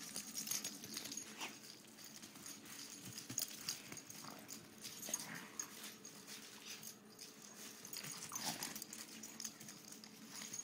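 Two dogs playing rough and chasing each other, with scuffling and clicking from their paws and a few brief high dog vocal sounds.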